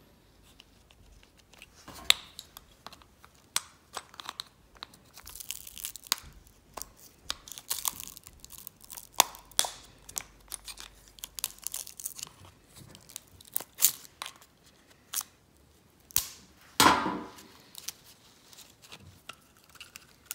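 Screwdriver prying and scraping inside an opened glow plug relay (solenoid) housing: a run of small clicks and scrapes of metal on metal and on the coil's wrapping, with one louder knock near the end.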